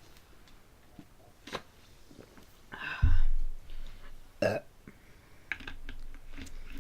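A person burping once, about three seconds in, followed a second and a half later by a shorter, higher sound.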